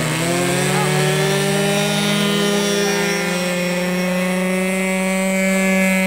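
Radio-controlled model airplane's motor and propeller running up: the pitch rises at the start, then holds a steady, loud drone with strong overtones.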